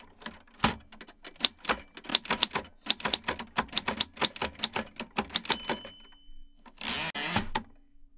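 Manual typewriter keys clacking in a quick, uneven run. A short high ring comes about five and a half seconds in, and a rasping sweep of under a second follows near the end.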